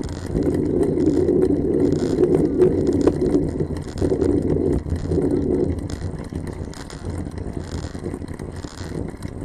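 Wind rushing over the microphone of a camera riding on a road bicycle, mixed with tyre and road noise, fluttering in loudness and easing after about six seconds.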